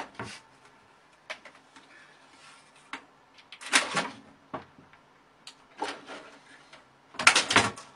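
A cat scrambling at a curtain and cabinet: short bursts of clattering and knocking, four clusters a second or two apart, the loudest near the end.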